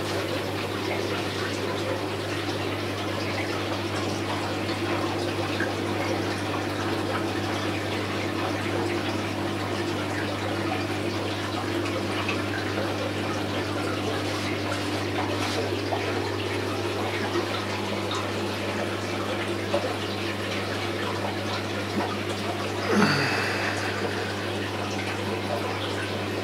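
Aquarium air bubbling and water splashing from airstones and sponge filters, over a steady low electrical hum of aquarium equipment. Near the end a brief sound slides quickly down in pitch.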